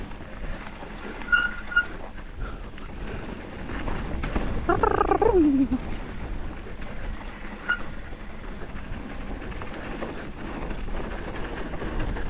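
Mountain bike rolling down a dusty dirt trail: tyre noise and wind rumble on the helmet camera, with rattling and clicking from the bike. About five seconds in, a brief squeal falls in pitch.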